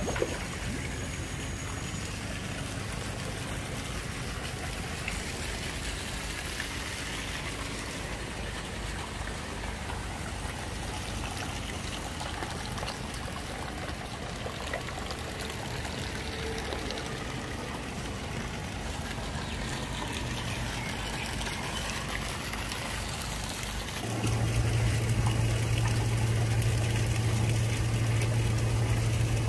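Water trickling and splashing into a koi pond from its waterfall, with road traffic in the background. About 24 seconds in, a steady low hum starts and everything gets louder.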